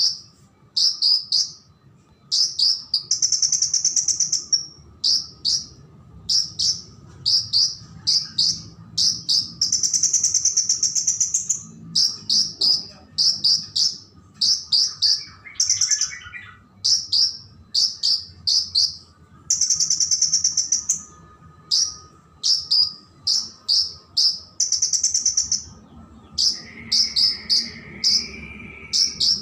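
Sunbird singing: rapid runs of short, high chirps, broken every few seconds by longer buzzy trills, in an active, full song.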